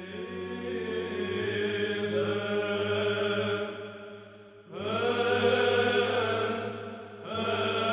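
Liturgical chant in the Byzantine style: voices singing long held phrases over a steady low drone, with short breaths about four and a half and seven seconds in.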